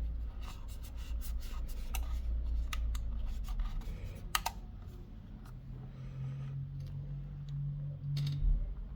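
Light clicks and scraping from small hard objects being handled, with one sharper click about four and a half seconds in, over a low hum that becomes a steadier low tone from about halfway.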